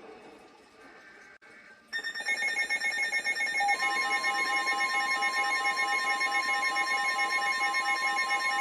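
NOAA Weather Radio alert signal: a loud electronic alarm starts suddenly about two seconds in, with a rapid pulsing beep. A steady high tone joins it a couple of seconds later. It is the alert that comes before a new tornado warning broadcast.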